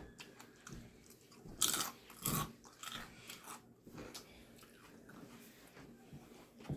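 Close-up chewing and biting into a grinder sandwich, with irregular crunches and wet mouth clicks; two louder crunches come about one and a half and two and a half seconds in.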